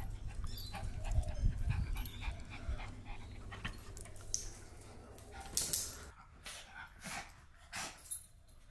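Small dogs moving about and breathing close by, with a low rumble over the first few seconds and scattered short noises in the second half.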